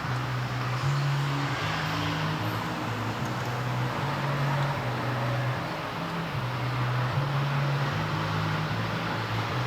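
AEON Coin 125 scooter engine running at idle, a steady low hum whose pitch wavers up and down every second or so.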